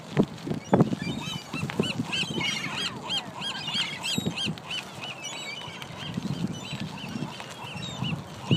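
Gulls calling: a quick run of repeated high calls in the middle, then scattered calls, over low rumble and a few low knocks near the start.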